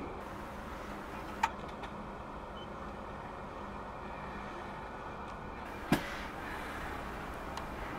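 PKP Intercity ED160 Stadler Flirt electric train at the platform, giving a steady low hum and hiss. Two sharp clicks about a second and a half in and near six seconds, the second the louder.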